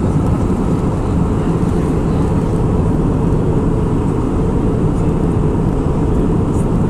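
Steady in-flight cabin noise of an Airbus A319 heard at a window seat over the wing: a low, even rush of airflow and engine noise with a faint steady hum.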